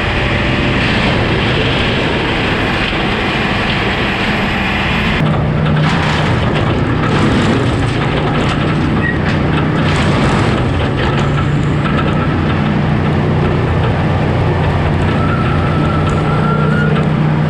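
Brush Bandit 280XP woodchipper running steadily after a first start in a year. About five seconds in the sound changes suddenly and a steady hum and a harsher hiss grow stronger.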